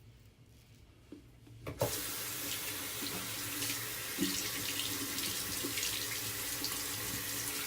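Sink tap turned on with a knock about two seconds in, then running water splashing steadily into the basin, with a few light taps in the stream.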